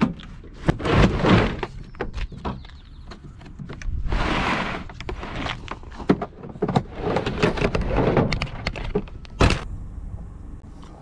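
Clunks, knocks and scraping as a pickup truck's tailgate is let down and its folding tonneau cover is handled, with a longer scraping rush about four seconds in and a sharp click near the end.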